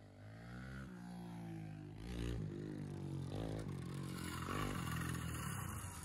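Small motorbike engine revving up again and again, getting louder as it comes closer.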